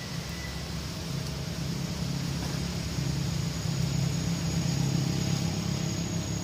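A motor's low, steady hum that swells louder through the middle and eases near the end, over an even high hiss.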